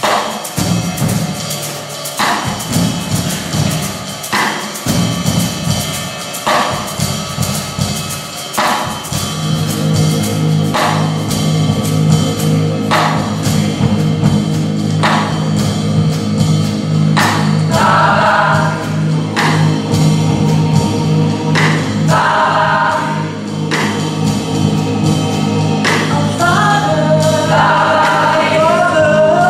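Live band playing a slow gospel song, with a drum hit about every two seconds. A steady bass line comes in about nine seconds in, and singing enters in the second half.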